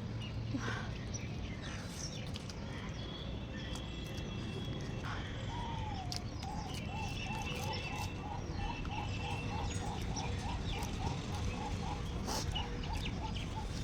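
A bird calling in the background: a rapid series of short repeated notes, about three a second, starting about six seconds in, over a steady low background noise with scattered faint clicks.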